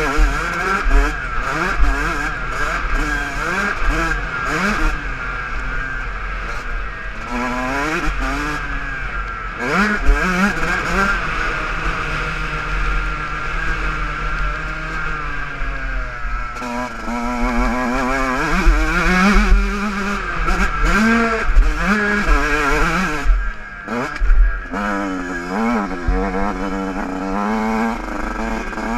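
Motocross bike engine being ridden hard on a dirt track, its pitch climbing steeply through each gear and dropping off when the throttle is shut, over and over. A steady low wind rumble runs underneath on the on-board microphone.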